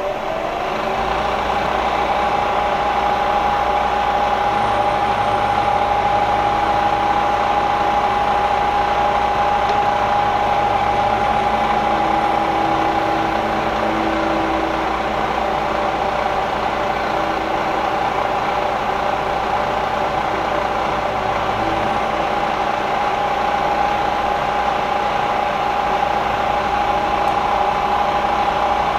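Variable-speed Bridgeport Series 1 knee milling machine switched on: the spindle comes up to speed in the first second, then runs steadily with a constant whine while the end mill works the part.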